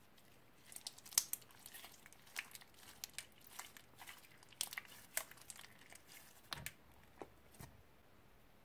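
Old slime being mixed and kneaded by hand, giving irregular sticky clicks and crackles that start about a second in and die away near the end.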